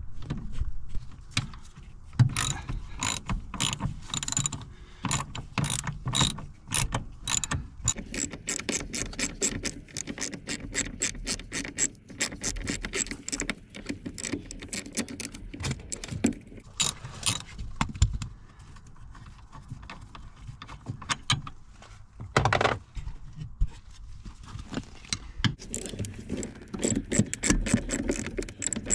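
Hand ratchet clicking in long, rapid runs as the seat's mounting bolts are undone, with single knocks of tools between the runs.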